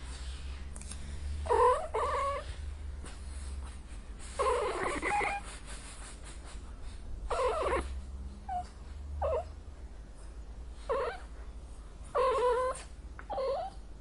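Angry domestic cat giving a string of about nine yowling meows, some short and clipped, a few drawn out to nearly a second, bending in pitch.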